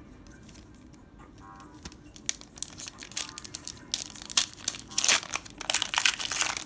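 Foil booster pack wrapper being crinkled and torn open: a run of sharp crackles that starts about two seconds in and grows denser and louder over the last few seconds.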